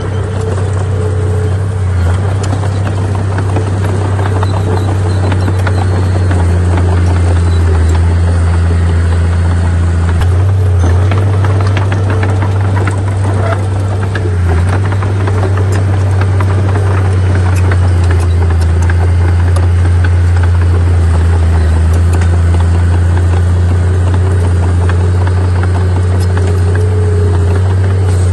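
Heavy diesel engine of earthmoving machinery running steadily at a low pitch, with scattered metallic rattles and clanks.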